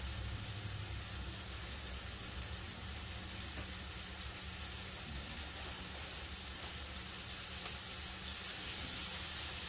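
Thin ground-beef patty sizzling steadily in an oiled cast iron griddle pan, with a low steady hum underneath.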